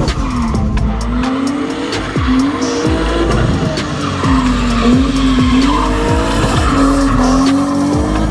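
Drift car's engine revving hard, its note rising and falling again and again, with tyres squealing as the car slides sideways.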